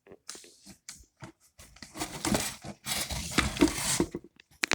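Toy vending machine's knob being twisted: a run of scraping and clicking from the turning mechanism, busiest in the middle, with a sharp click near the end as the item drops out.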